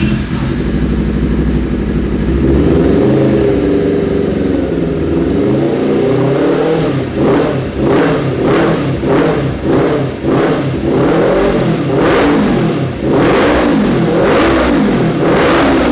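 Honda CBR250RR's parallel-twin engine revved through an Akrapovic slip-on exhaust: it runs and climbs in pitch at first, then is blipped in quick repeated throttle stabs from about halfway, with two longer revs near the end. The note is deep and aggressive, "gahar dan bas sekali" (fierce and very bassy).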